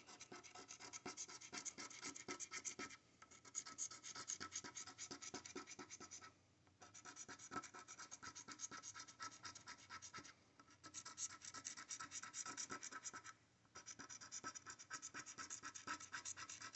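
A coin scraping the silver coating off a paper scratch-off lottery ticket: faint, rapid back-and-forth scratching in several runs, each broken by a brief pause.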